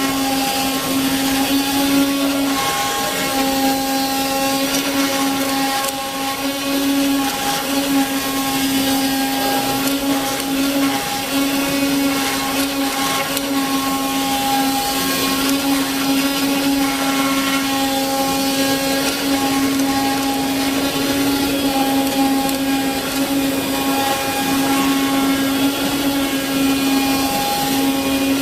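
Ruizhou CNC leather cutting machine running: a steady motor hum with a high whirring hiss, with fainter higher tones that cut in and out.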